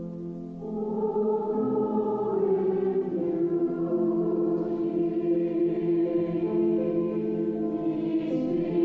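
Mixed church choir singing a slow liturgical chant in long, held chords, swelling louder about a second in.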